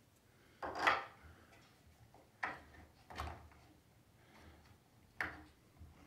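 Hands working the plastic clamp and support piece of a Work Sharp Precision Adjust knife sharpener: a handful of separate clicks and knocks, the loudest about a second in, with light rubbing between.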